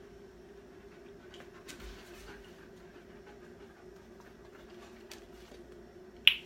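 Faint dog panting and small movements, then near the end a sharp double click from a handheld dog-training clicker, marking the moment the dog touches the target.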